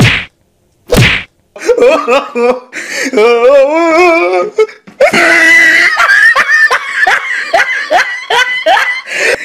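Three sharp slap-like hits about a second apart, then a burst of laughter that turns into loud, rhythmic ha-ha bursts about two a second in the second half.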